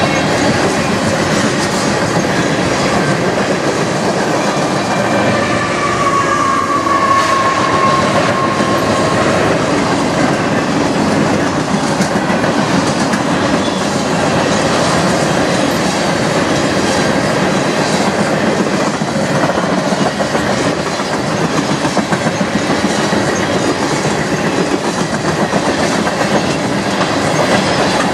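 Freight cars (gondolas and covered hoppers) rolling past close by, steel wheels rumbling and clicking over the rail joints. A brief high wheel squeal rises out of the rumble about six seconds in and fades a few seconds later.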